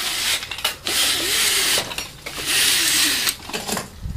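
Fabric vertical blinds being drawn open: the cord running through the headrail mechanism as the slats slide and clack along the track, in two long pulls with a short break between them.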